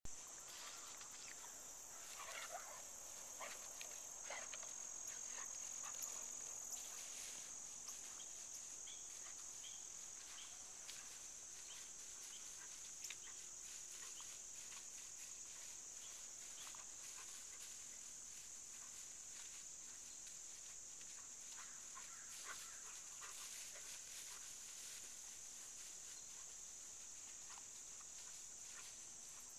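Faint, steady high-pitched chorus of field insects such as crickets, with a few brief faint chirps or rustles in the first several seconds.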